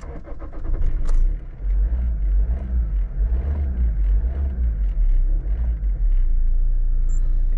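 Toyota Avensis 116 hp D-4D diesel engine cranked by the starter and catching, revving unevenly as throttle is fed in, then settling into a steady even idle about six seconds in. This is the first start after a new suction control (SCV) valve was fitted and the fuel filter primed.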